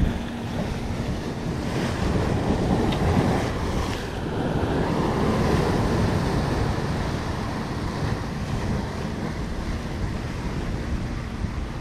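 Sea surf breaking and washing over a rocky shoreline, swelling louder a couple of times, with wind buffeting the microphone.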